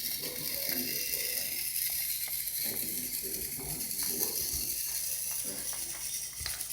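Inductive line-following toy truck's small motor and gears running as it drives along a drawn line: a steady high whirring with light clicking.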